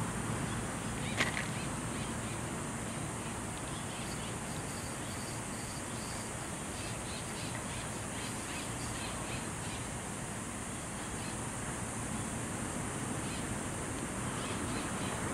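Outdoor ambience: a steady hiss with birds calling in short, repeated chirps, most of them in the middle stretch. A single sharp click sounds about a second in.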